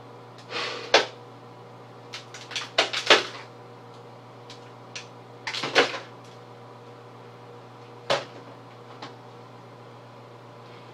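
Thin foil pie tin crinkling and clicking in short bursts as it is handled, over a steady low hum.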